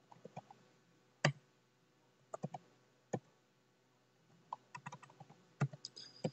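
Computer keyboard being typed on: scattered, separate key clicks with pauses between them, one louder keystroke about a second in.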